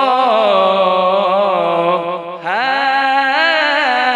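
A man singing a naat, unaccompanied, into a microphone, holding long, wavering notes. He pauses for a breath about two seconds in and comes back in on a rising phrase.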